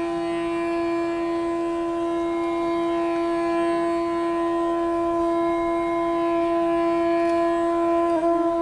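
Soundtrack music: a single long note held steady on a wind instrument, rich in overtones, with a brief waver in pitch near the end.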